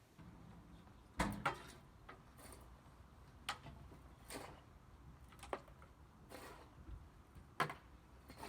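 Faint, irregular knocks and short scrapes, about seven spread over several seconds, over a quiet background.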